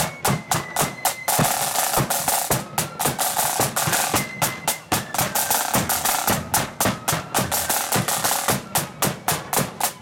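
Marching flute band playing: snare drums rattling in fast rolls and accents over a steady bass drum beat, with flute notes faintly above the drumming.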